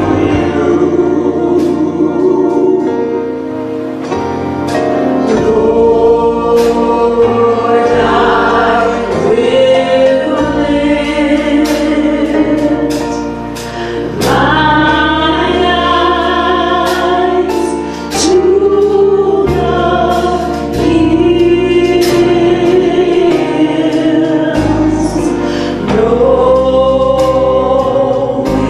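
Gospel vocal group of three women and a man singing in harmony into microphones, with low sustained bass notes underneath that change every few seconds.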